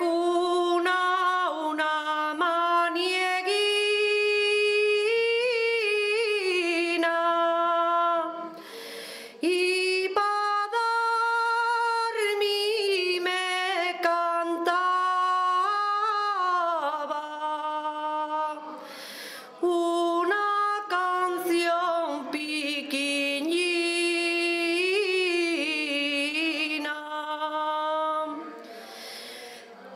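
A solo singer's voice, unaccompanied, holding long high notes with ornamented turns in pitch, sung in long phrases with short breaks between them.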